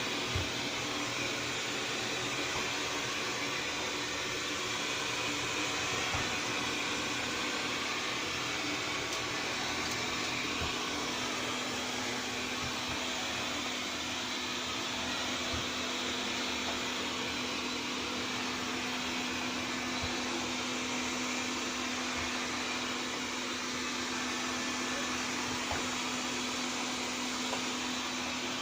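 Xiaomi Mi Robot Vacuum-Mop P running: the steady whir of its suction fan, with a low steady hum that comes in about nine seconds in and scattered faint knocks.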